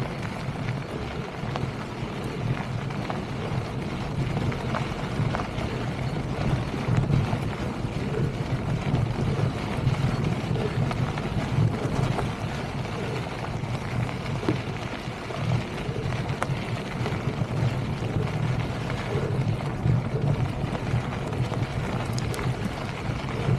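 Wind buffeting the camera microphone as a Polygon Siskiu mountain bike rolls over a rocky gravel trail, its tyres crunching on loose stones and the bike rattling with scattered clicks.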